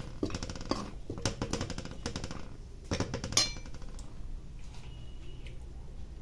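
Metal spatula scraping and tapping against a kadai while stirring cashew pieces frying in ghee: a run of quick clicks and scrapes, two sharper knocks about three seconds in, then it goes quiet apart from a faint steady background.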